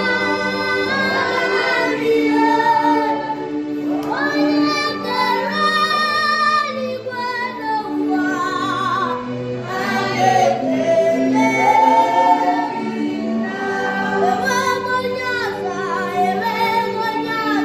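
A female voice sings a gospel song with vibrato on its held notes, over a steady backing of sustained chords.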